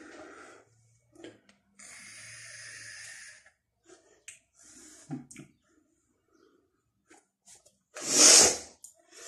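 Breathing sounds of a person vaping: a soft exhale of vapour, then a steady hiss lasting about a second and a half as he draws on the vape, and a loud short burst of breath near the end.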